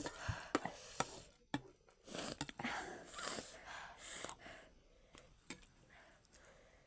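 Close-up eating noises: a few sharp clicks and taps, like a spoon on a plate, and several short, noisy breaths through the mouth.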